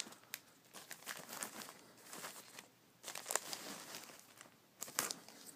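Trading card packaging being handled: light crinkling and rustling of wrapping, with a few sharp crackles.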